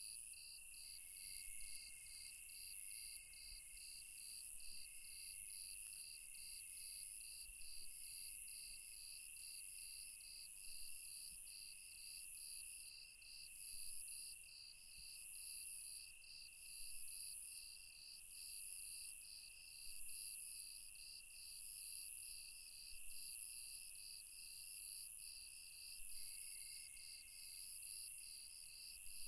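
A chorus of crickets and other night insects. One insect keeps up a steady trill, another chirps evenly about twice a second, and fainter insects come and go behind them.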